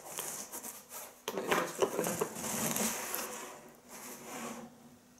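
Cardboard box being opened by hand, its lid and flaps scraping and rubbing against each other, busiest in the first three seconds and dying away after about four.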